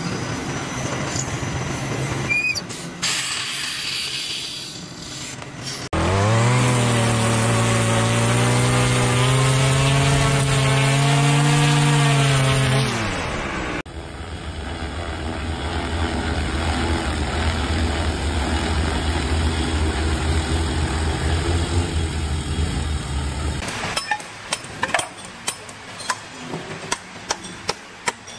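A run of separate machine clips. First a lathe cuts and drills a white rod with a scraping hiss. About six seconds in, a machine hum rises in pitch, holds and then falls away. Next comes the steady buzz of an agricultural spray drone's rotors, and near the end a hammer taps quickly and sharply on a chisel to split slate.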